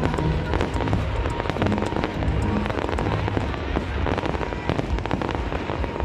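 Aerial fireworks bursting in a dense, continuous barrage of many sharp cracks and bangs, with music in the background.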